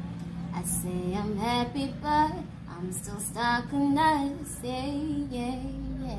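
A young woman singing solo, a melodic line with phrases that slide between notes, the loudest notes about two and four seconds in. A steady low hum runs underneath.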